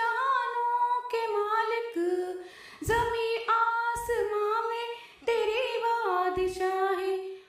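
A woman singing an Urdu devotional hymn (hamd), drawing out long held notes that slide between pitches.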